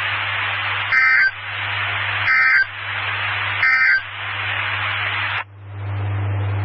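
NOAA Weather Radio SAME end-of-message code: three short two-tone data bursts, each about a third of a second long and about a second and a half apart, over steady radio hiss and a low hum. They mark the end of the alert message. Near the end the hiss drops away and the hum grows louder.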